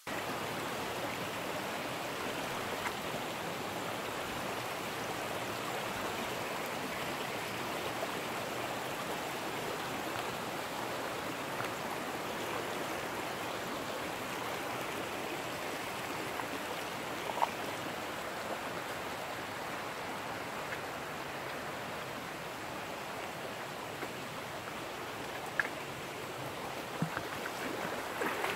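Shallow mountain stream running over rocks: a steady rush of water, with a few small clicks in the second half.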